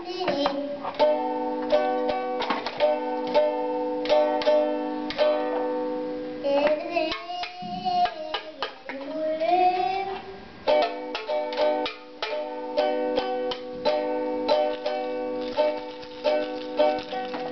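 Ukulele strummed in steady, rhythmic chords. A child's singing voice comes in over it in the middle, gliding up and down, while the strumming thins out, then the chords pick up again.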